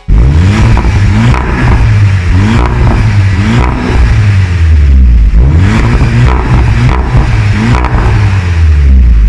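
SEAT León Cupra's turbocharged 2.0-litre four-cylinder engine heard loud at the exhaust tip, revved several times, its pitch rising and falling with each blip.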